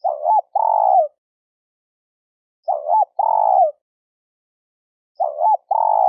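Spotted dove cooing: three two-part coos about two and a half seconds apart, each a short hooked note followed by a longer, falling note.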